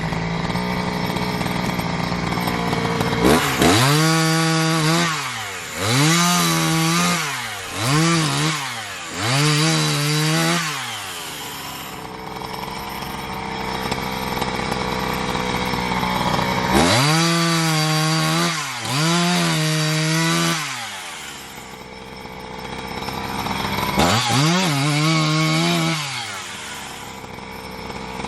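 Two-stroke chainsaw cutting firewood. It idles, then is throttled up in repeated short bursts, four close together, then two, then one more near the end, dropping back to idle between each.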